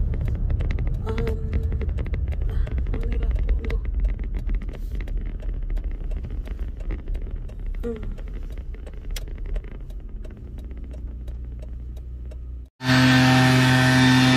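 Low steady rumble of a car driving, heard from inside the cabin. Near the end it cuts abruptly to the loud, steady run of a gas yard tool's small engine.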